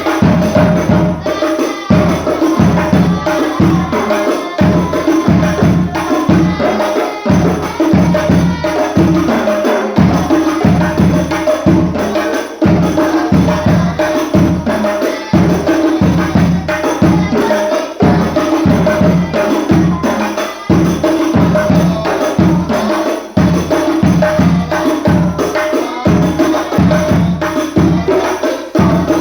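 Hadroh music: an ensemble of rebana frame drums and tambourine playing a steady, driving rhythm, with several strokes a second over sustained tones.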